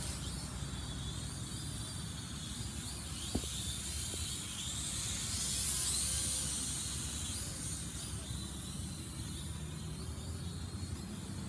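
Small toy quadcopter's motors and propellers whirring with a high hiss, growing loudest around the middle as it flies close overhead and then easing off, over a low rumble. A single sharp click about three seconds in.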